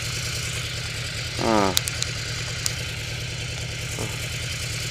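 Yamaha VMAX's V4 engine idling steadily. A short pitched sound about a second and a half in, followed by a few sharp clicks.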